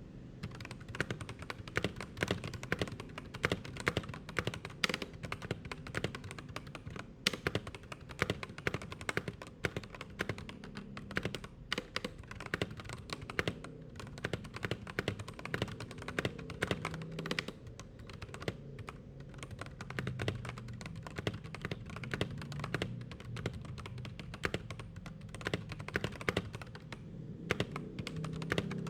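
Continuous typing on a Keychron K12 mechanical keyboard with Keychron Banana switches, cotton and toilet tissue stuffed inside the keycaps to dampen them: many quick key clicks a second.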